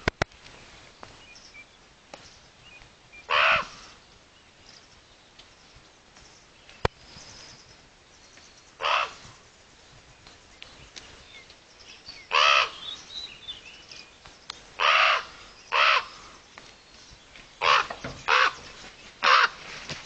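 Ravens calling with about eight harsh, short croaks, spaced irregularly and coming closer together in the last few seconds. There are a couple of sharp clicks as well, one near the start and one about seven seconds in.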